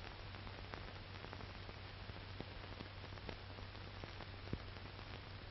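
Steady hiss and low hum of an old 1940s film soundtrack, with a few scattered faint clicks.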